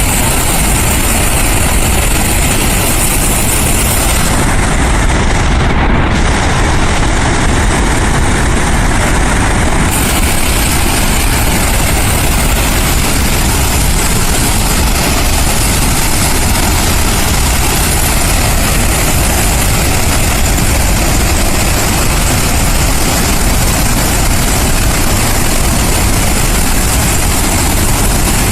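Loud, steady rush of floodwater released at high volume through Summersville Dam's outlet, a continuous heavy roar with a deep low rumble.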